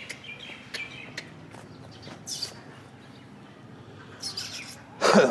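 Small birds chirping and tweeting intermittently in the open air. A brief, louder voice-like sound comes right at the end.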